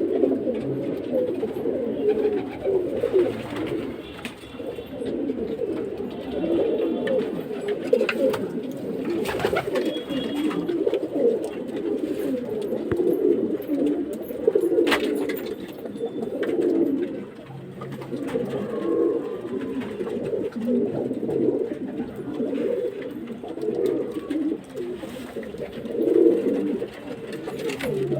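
Many domestic pigeons cooing at once, a dense, continuous chorus of overlapping coos, with an occasional sharp click.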